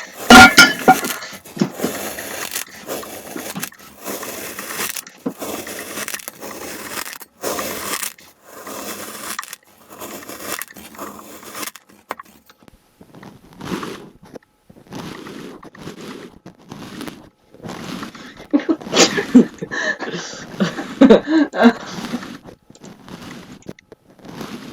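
Kinetic sand being cut and crushed, making repeated crunching and crackling sounds, dense for the first half and sparser and quieter after that, with a louder cluster about three-quarters of the way through.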